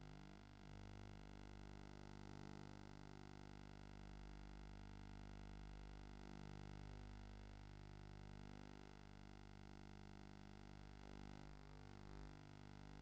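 Near silence: a faint steady hum with hiss.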